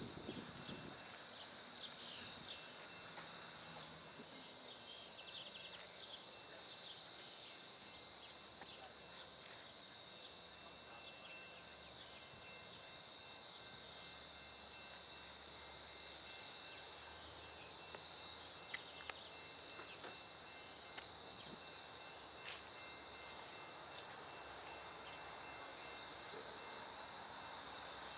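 A steady, high-pitched pulsing trill of insects, with scattered short bird chirps over it.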